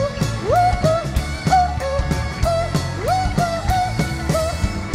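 Rock band music: a steady drum beat about three hits a second under a lead melody that slides up into its held notes.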